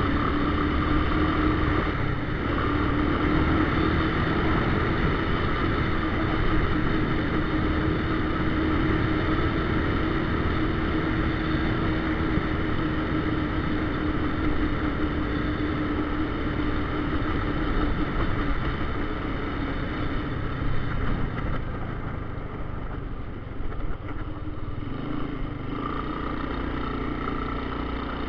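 1982 Honda Big Red 200E three-wheeler's single-cylinder four-stroke engine running at steady throttle while riding over snow, easing off about three-quarters through and picking up again near the end.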